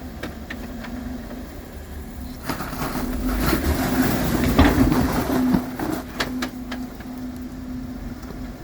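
Four-door Jeep Wrangler crawling over rocks, its engine running with a steady hum. About two and a half seconds in, it pulls harder for roughly three seconds, with a deep rumble, crunching over rock and a few sharp knocks.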